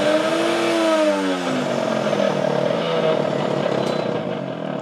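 AMZCHEF countertop blender's motor running with the jug empty, its whine rising and then falling in pitch as the speed knob is turned, then running steadily and easing off near the end.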